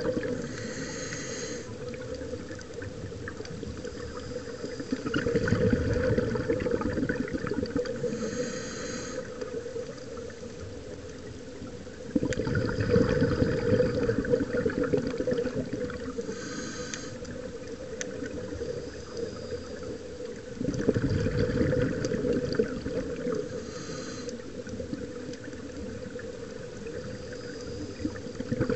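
Scuba diver's regulator breathing heard underwater. Each breath is a short hiss on the inhale, then a longer, louder rumble of exhaled bubbles, repeating about every seven to eight seconds, with three full breaths here.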